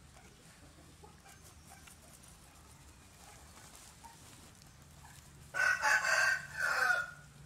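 A rooster crowing once, a loud three-part call lasting about a second and a half, starting about five and a half seconds in.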